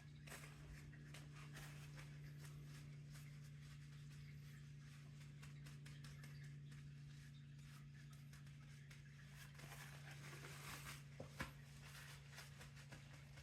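Near silence: a faint steady low hum with scattered soft ticks and rustles, and one sharper click near the end.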